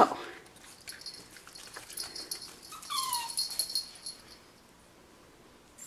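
Cavapoo puppy whimpering: one short whine falling in pitch about three seconds in, with light rustling around it. She is whining at being shut back in her playpen.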